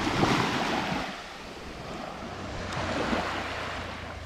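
Sea waves washing ashore: a steady hiss of surf that swells twice, once at the start and again about three seconds in.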